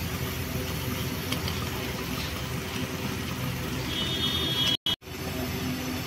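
Gas brazing torch flame hissing steadily while a copper suction-line joint on a refrigerator compressor is brazed. The sound cuts out for a moment about five seconds in.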